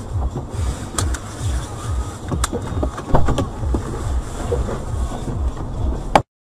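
Car cabin noise picked up by a dashcam: a low, pulsing rumble with several sharp knocks, the loudest about three seconds in. The sound cuts off abruptly near the end.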